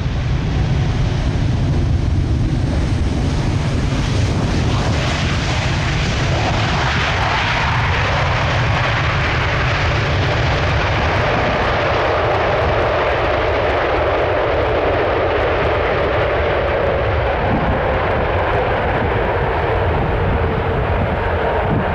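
Boeing 747-8 freighter's four GEnx jet engines running on the landing roll, a deep rumble throughout. About six seconds in, the roar grows louder and brighter and a steady whine rises out of it, typical of reverse thrust being applied after touchdown.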